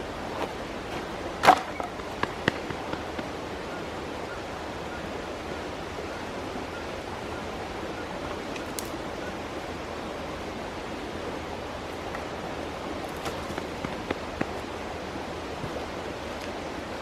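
Mountain stream rushing steadily, with a few sharp clicks and knocks on top: the loudest about a second and a half in, a couple more just after, and a scatter of lighter ones near the end.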